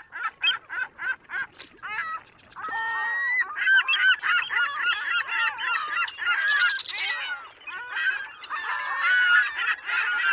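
A flock of birds calling: first a quick run of short separate calls, then from about three seconds in many loud honking and squawking calls overlapping in a dense chorus.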